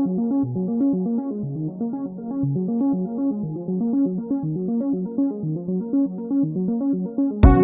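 Background music: a synthesizer keyboard playing a repeating arpeggio of quick notes, with drums coming in just at the end.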